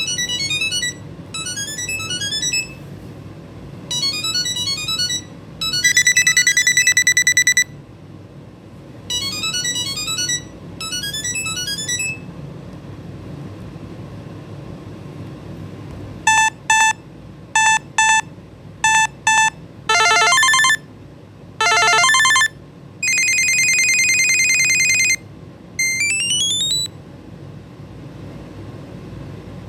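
Samsung Galaxy SmartTag's built-in buzzer ringing through a series of different electronic ring melodies. There are quick rising runs of beeps and a long steady tone in the first several seconds; after a pause of a few seconds come fast repeated beeps, held tones and more rising runs.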